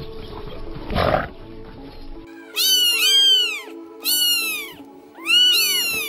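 A cat meowing three times, each meow rising and then falling in pitch, over background music. A short rough animal grunt comes about a second in.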